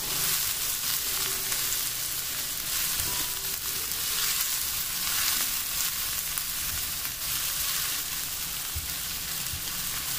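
Chopped onions sizzling in oil in a non-stick frying pan, a steady frying hiss, while a silicone spatula stirs them. They are being gently softened until translucent, not browned.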